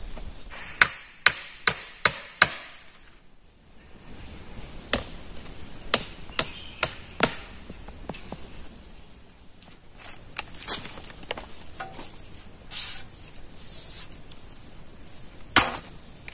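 Hand tool striking wood in sharp single knocks: a quick run of five, a pause, another run of about five, then a last knock near the end.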